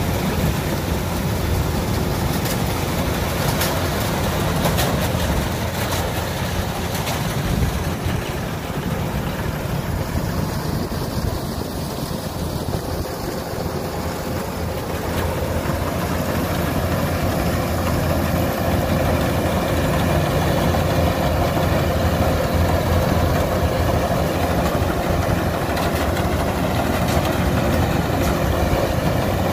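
Kubota DC105X combine harvester's diesel engine running steadily as the machine works, growing louder from about halfway through.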